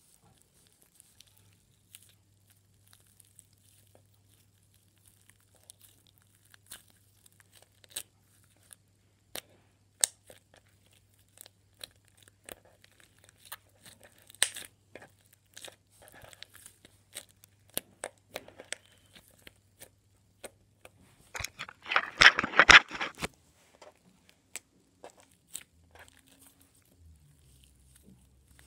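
Blue slime being kneaded and squeezed by hand, giving scattered sticky clicks and pops, with a louder run of rapid crackling pops about three-quarters of the way through.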